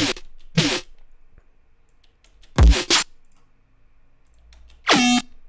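Three short electronic bass-sound snippets, resampled from one synth preset, played back one at a time about two seconds apart. The middle one has the deepest low end, and faint mouse clicks fall in the gaps.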